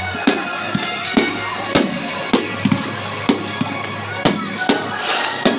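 Fireworks going off in a rapid series of sharp bangs, about two a second, with music and a continuous background wash of noise underneath.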